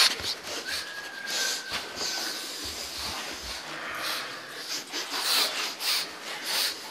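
A person breathing hard: a string of short, breathy exhalations and hisses, several to a second or so.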